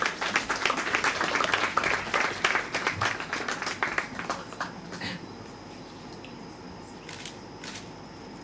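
Audience applauding. The dense clapping dies away about five seconds in, leaving a few scattered claps.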